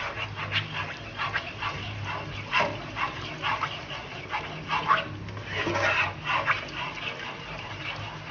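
A black plastic spoon stirring tomato paste into a watery tomato-and-olive sauce in a nonstick pot, making irregular short scrapes and clacks against the pan over a low steady hum.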